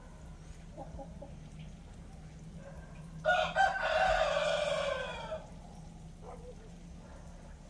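A rooster crowing once, about three seconds in: a single call of about two seconds that drops in pitch at the end.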